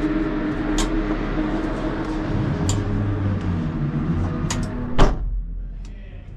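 Porsche 992 GT3 Cup race car powering up on ignition, with no engine start: a steady mechanical hum with a few sharp clicks, a stronger low hum for about two seconds in the middle, and a loud clunk about five seconds in, after which the hum goes quieter.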